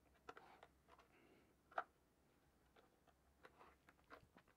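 Faint, scattered clicks and light taps from a violin and its newly fitted pegs being handled on a padded workbench, one click a little louder about two seconds in.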